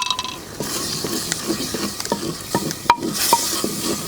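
Onions and spices frying in oil in a clay pot, stirred with a spoon: a steady sizzle under irregular knocks and scrapes of the spoon against the pot, several with a short ring.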